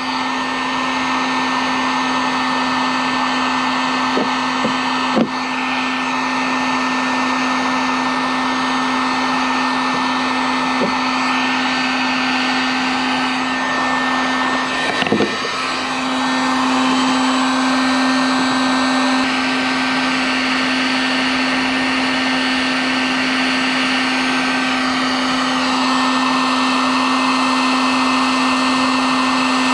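Heat gun running steadily: a motor-and-fan hum with a rush of hot air, melting plastic to weld a patch onto a plastic boat hull. A few light knocks come about five seconds in and again about halfway, and the hum grows a little louder just after.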